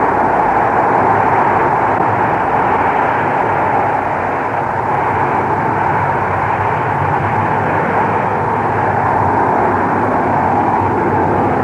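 Radio-drama sound effect of a rocket launch: a loud, steady rushing roar of rocket-engine noise, with no change in level or pitch, on a narrow-band old broadcast recording.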